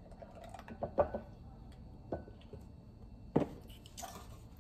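Cardboard cream cartons being handled and set down on a kitchen counter: three light knocks, about one, two and three and a half seconds in.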